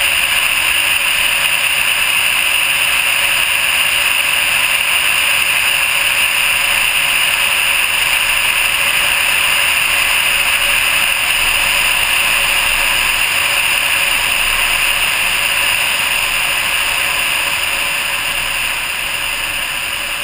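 Steady rush of airflow over a GoPro mounted on the nose of a Vega glider on final approach, with no engine. It eases a little near the end as the glider slows to land.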